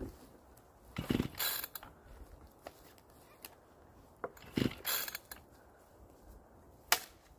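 Echo two-stroke chainsaw pull-started twice on choke, about a second in and again some three and a half seconds later. Each pull is a short whir of the recoil starter and cord, and the engine does not catch. A sharp click comes near the end.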